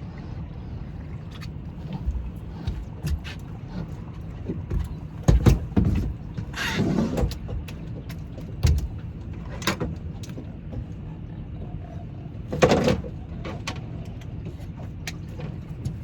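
Knocks and thumps on a boat over a steady low rumble of wind and water. The loudest come in a cluster about five to seven seconds in, including a longer scrape, and again near thirteen seconds.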